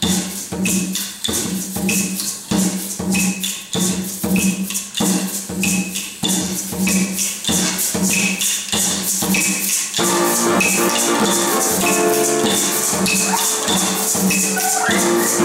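Hand-played conga drum keeping a steady beat under crisp rattling percussion; about ten seconds in, a choir comes in holding sustained chords over the beat.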